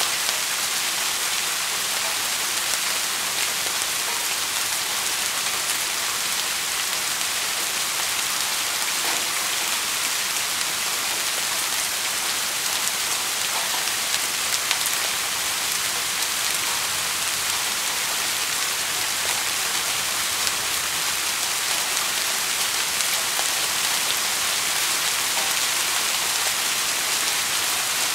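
Steady rain falling: an even hiss of many drops, with the occasional single drop ticking a little louder above it.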